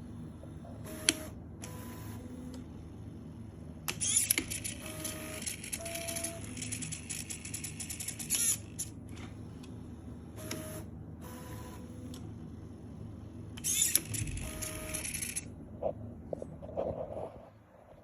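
3D printer tool changer at work: stepper motors moving the toolhead in short runs, each giving a brief steady tone at a few different pitches, with several louder whirring bursts from the servo-driven tool lock and a sharp click about a second in, over a steady low hum.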